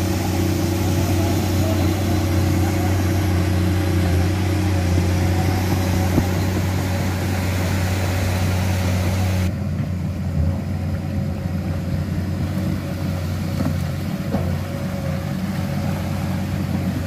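Komatsu PC210 excavator's six-cylinder diesel engine running with a steady low drone. The sound changes abruptly about halfway through, then the engine drone carries on.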